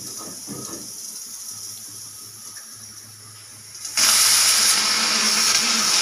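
Pressure cooker hissing faintly, then about four seconds in its weight valve lifts and a loud, steady hiss of steam bursts out, spitting frothy liquid from the food inside past the valve.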